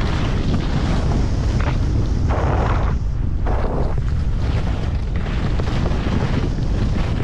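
Heavy wind buffeting on the camera microphone while skiing fast, a steady low rumble, with skis hissing and scraping across the snow in swells as each turn is carved.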